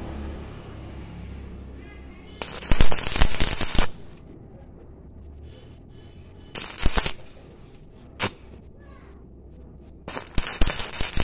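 Stick (arc) welding on galvanized square steel tube: the arc crackles and spits in short bursts, three of a second or so each with a brief pop between, as the joint is stitch-welded a little at a time.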